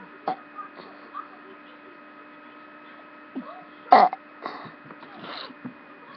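A short, loud burp about four seconds in, over a steady electrical hum, with a few faint throat noises and clicks around it.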